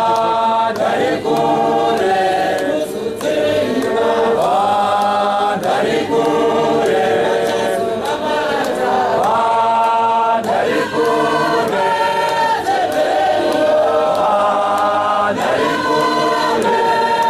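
A choir of many voices singing a Shona church hymn in chorus, moving through phrases of long held notes that change every second or two.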